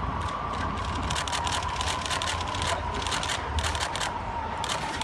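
City street traffic rumble, with a thin steady whine and many quick high-pitched clicks and rustles over it.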